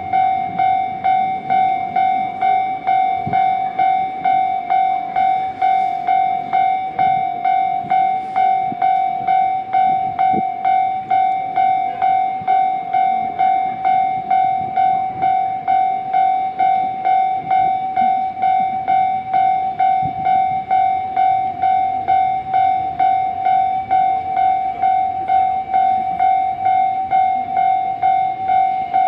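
Japanese railway level-crossing warning bell ringing steadily, an electronic ding repeating about twice a second. A train's running noise sits faintly underneath.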